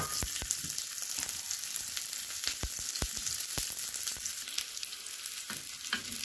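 Sliced shallots sizzling in hot oil in a small frying pan with mustard, cumin and fennel seeds, the start of a tempering. The sizzle is a steady hiss with scattered sharp pops and clicks, most of them in the first half.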